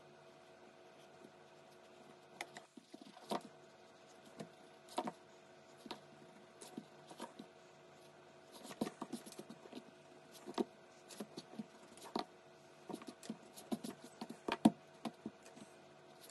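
Pencil sketching on paper: short, quick strokes make irregular dry scratches and ticks, starting about two seconds in and coming more often in the second half. A faint steady hum runs underneath.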